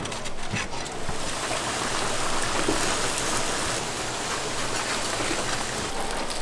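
Hot oil sizzling steadily as chicken deep-fries, with a few knocks in the first second.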